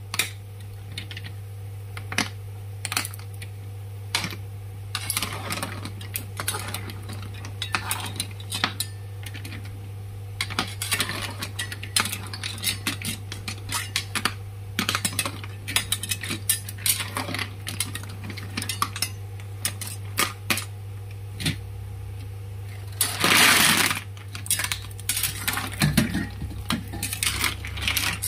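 Clam shells clinking against each other and against the metal wok as they are turned in boiling water with metal tongs: a scatter of sharp clicks and clacks, with a longer scraping rush a few seconds before the end.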